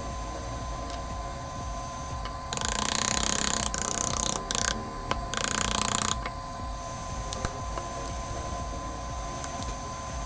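Shattered iPhone XS Max back glass peeled off its adhesive by hand: loud crackling and tearing in three bursts between about two and a half and six seconds in, over a steady background hum.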